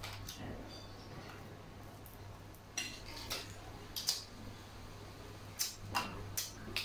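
Spoon and fork clinking against a ceramic plate of rice: about seven sharp, separate clicks, most of them in the second half. A faint steady low hum runs underneath.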